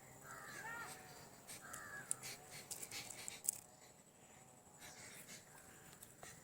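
A bird gives two short, harsh calls in the first two seconds, and there are a few sharp clicks.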